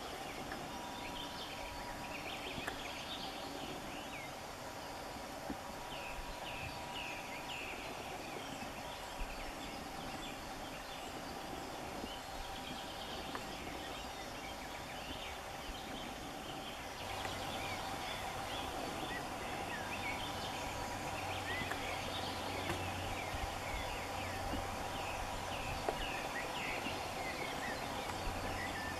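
Many short bird chirps and calls over a steady background hiss, with a low hum joining a little past halfway.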